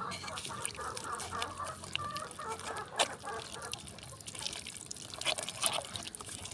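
Desi hens clucking, mixed with scattered small clicks and taps.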